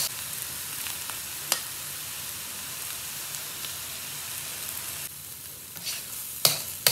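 Stir-fry sizzling steadily in a carbon-steel wok, with metal tongs clicking against the pan a few times: once about a second and a half in and twice near the end.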